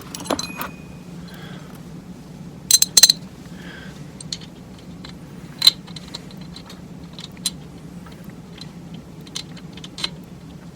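Small steel transmission parts clicking and clinking as the accumulator cover and its bolts are handled, with a few sharp metallic clinks about three seconds in, over a steady low hum.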